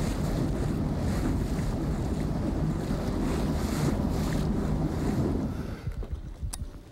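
Wind buffeting the microphone on a boat over choppy water, a steady low rumbling rush with water slapping around it; it drops away about six seconds in, leaving a quieter wash with a few faint clicks.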